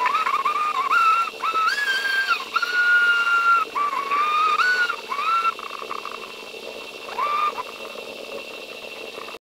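High whistle-like tone that jumps and slides in pitch in short stretches, breaking off and restarting every half second to a second, over a faint steady hum; it weakens about halfway through, gives one last short tone near the end, then cuts off suddenly. It is the audio of a damaged GoPro camera file, and the narrator cannot say whether it is a recording fault or an anomaly.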